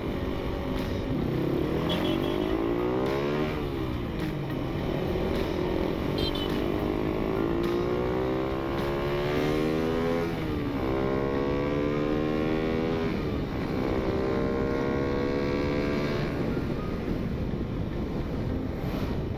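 Suzuki Raider 150 motorcycle engine running under way, its pitch climbing steadily as it accelerates and dropping sharply at each gear change, three times. Wind rushes past the microphone.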